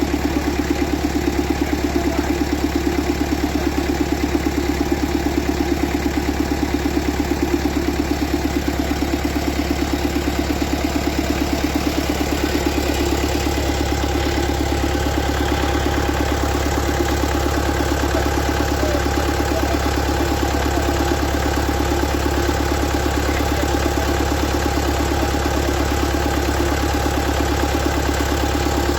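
Vehicle engine idling steadily with an even, unchanging hum.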